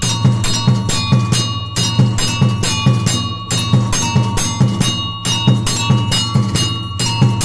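Temple bells struck in a fast, steady rhythm, about four strikes a second, each strike ringing on. A deep drum beats along underneath, and the pattern repeats every couple of seconds.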